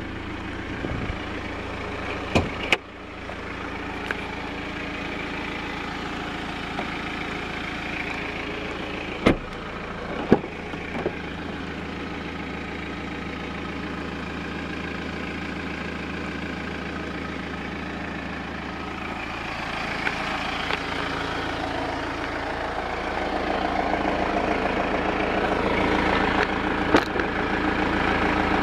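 BMW X1 sDrive's engine idling steadily, with a few sharp knocks of handling along the way; it gets louder over the last few seconds.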